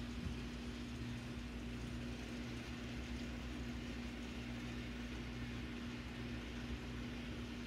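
Model trains running on a layout: a steady, fairly quiet electric hum over a low motor drone.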